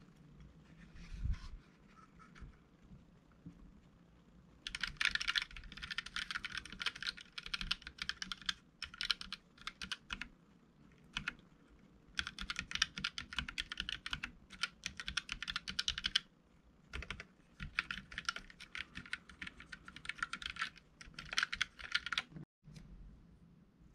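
Typing on a Keychron K3 low-profile mechanical keyboard with Gateron Red linear switches: rapid key clicks in several runs with short pauses, beginning about five seconds in.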